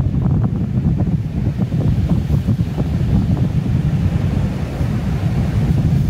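Wind buffeting the microphone outdoors, a steady low rumble that flutters unevenly, over a fainter rush of wind.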